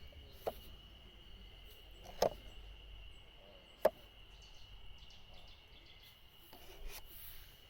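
Steady high trill of insects, as of crickets, with three sharp clicks or pops standing out over it.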